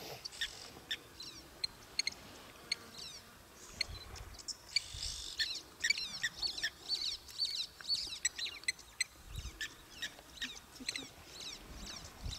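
Birds calling: a dense chorus of short, quick chirps and downward-sweeping notes, overlapping throughout.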